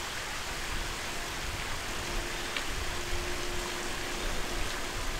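Steady outdoor background hiss, with a faint steady hum underneath.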